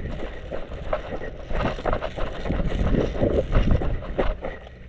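Low wind rumble on the microphone, with irregular knocks and rustles.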